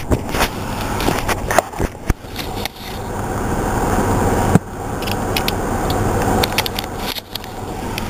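Close rubbing and rustling of handling under a car's dashboard, broken by a few scattered sharp clicks of hand tools.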